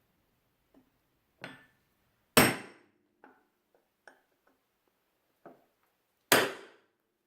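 Hammer striking a steel center punch: two sharp, ringing blows about four seconds apart, with a lighter knock before them and faint taps between, punching a mark to locate a drill hole.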